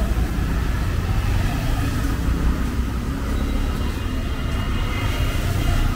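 Street traffic: a steady low rumble of vehicle engines running close by.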